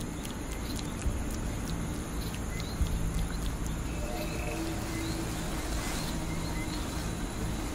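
Steady forest ambience with a few faint, short high chirps from birds or insects, under low held tones like a quiet drone.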